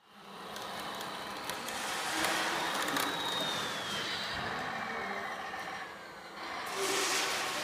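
Radio-controlled model construction vehicles, a tipper truck and a wheel loader, running in a sandpit: a steady motor noise, a faint whine that falls in pitch over a couple of seconds, and a short hiss about seven seconds in.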